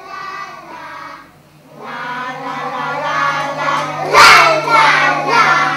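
A group of young children singing together. They pause briefly, then sing louder from about two seconds in, with a sudden loud burst about four seconds in as the loudest moment.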